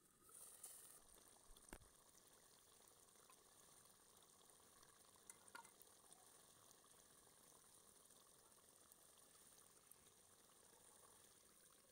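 Lid lifted off an aluminium cooking pot, with a light clink about a second and a half in, then chicken broth simmering faintly in the pot.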